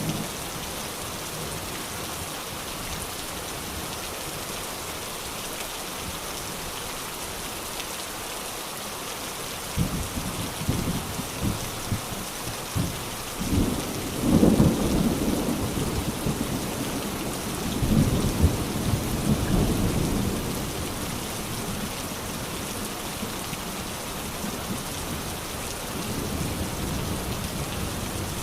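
Steady rain falling, with thunder rumbling in about a third of the way through, swelling twice and rolling away by about two-thirds of the way.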